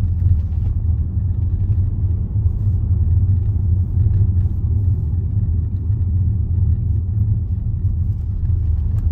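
Steady low rumble of a Range Rover on the move, heard inside the cabin: engine and road noise from the tyres.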